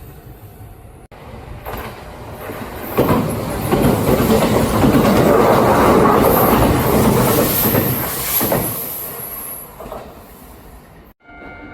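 Kintetsu electric train passing at speed, its wheels clattering over the rail joints with a high squeal. The sound builds from about two seconds in, is loudest through the middle, and fades away near the end.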